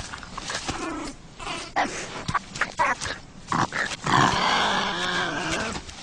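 Wolverine vocalizing: a run of short, rough calls, then a longer, louder call from about four seconds in that fades near the end.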